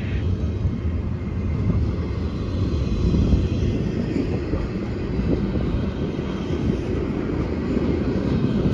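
A train passing with a steady low rumble.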